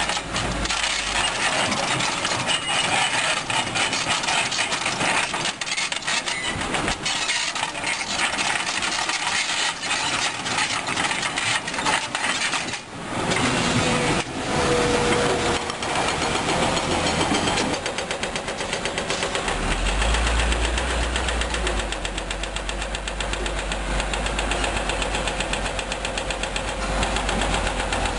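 Komatsu PC200-8 Hybrid excavator working: its diesel engine running under load amid the clatter of broken rock against the steel bucket and the dump truck's bed. A steady whine comes and goes in the second half, and a deep rumble grows stronger about two-thirds of the way through.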